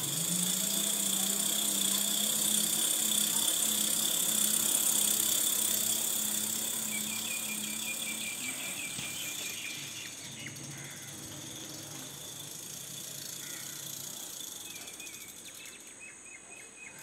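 Electric bicycle's 36 V rear hub motor spinning up and running with a steady hum, powered straight from a solar panel with no battery fitted. About eight seconds in the hum drops lower and fainter. A steady high-pitched hiss runs underneath.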